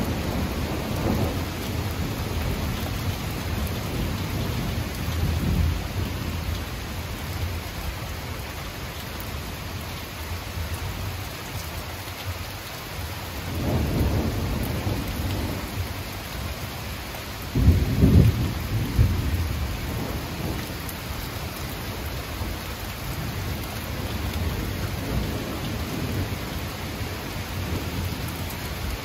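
Thunderstorm: steady rain hissing throughout while thunder rolls in several deep rumbles. The loudest peal comes a little past halfway, with fainter rumbling near the end.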